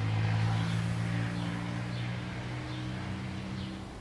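A steady low mechanical hum with faint high chirps repeating about once a second.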